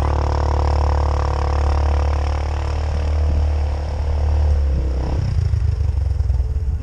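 Polaris Sportsman 500 ATV's single-cylinder engine with an aftermarket Hotseat exhaust, running steadily under throttle. About five seconds in it drops to a throbbing idle with distinct, rapid firing pulses.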